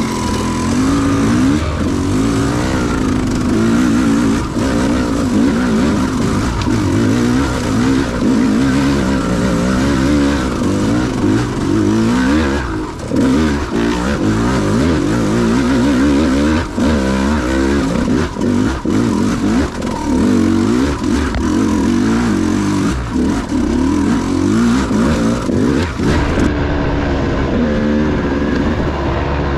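KTM 200 XC-W two-stroke dirt bike engine running under throttle while being ridden, its pitch rising and falling again and again as the rider opens and closes the throttle.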